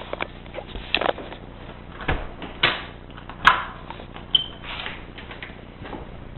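Front door being unlocked and opened: a series of separate clicks and knocks, with a sharp click about three and a half seconds in and a brief high squeak just after.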